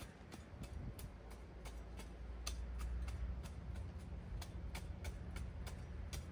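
A steady series of sharp clicks, about four a second, over a low rumble.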